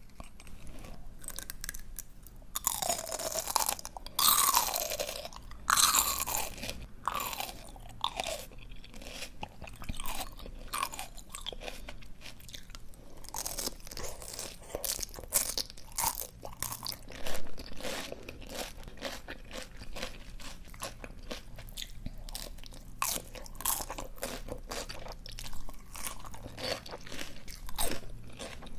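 Close-miked chewing of crisp, juicy raw greens: many sharp crunches and pops in quick succession, loudest a few seconds in.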